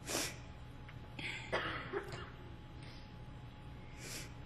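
A man's breathing and throat noises picked up close on a headset microphone: a sharp breath at the start, a short throat-clearing about a second and a half in, and another sharp breath near the end, over a faint steady hum.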